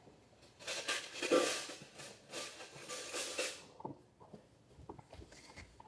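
Someone rummaging in a cutlery drawer for a spoon: a few seconds of faint rattling and clatter, then a few light clicks.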